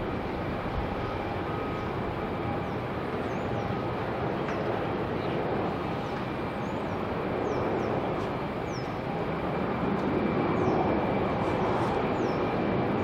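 Boeing 737-800's CFM56 turbofan engines on takeoff: a steady jet rush with a few thin whining tones, swelling slightly in the second half. A few faint high chirps sound over it.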